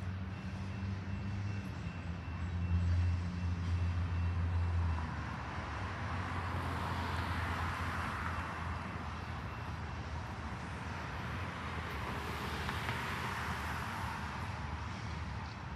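Road traffic on a street, with cars passing twice and their noise swelling and fading, over a low steady rumble of a long freight train rolling by. A low engine hum is heard in the first few seconds.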